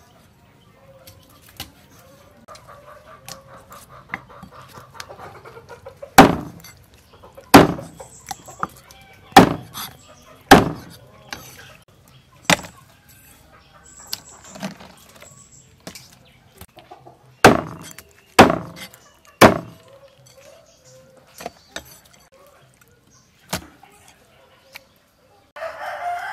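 Cleaver chopping fish into pieces on a wooden chopping block: about eight heavy chops in two runs, with lighter knocks between. Chickens cluck and a rooster crows in the background.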